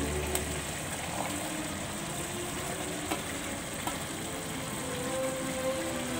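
Steady sizzle from a wok of gizzard simmering in soy sauce as sliced carrots, capsicum, green beans and celery are tipped in from a plate, with a few faint light taps as they drop.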